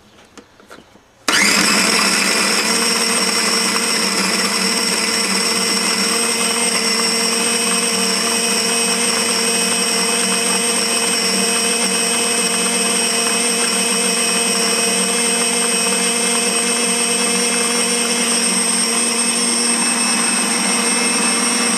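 A few faint clicks, then about a second in a food processor's motor switches on and runs steadily at full speed with a constant whine, blending chunks of herring and shrimp in mineral oil down to a liquid.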